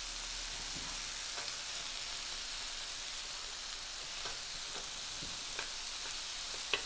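Thin-cut beef short ribs (LA galbi) sizzling steadily on a hot electric grill pan. A few light taps of tongs on the meat and pan come through, the sharpest one near the end.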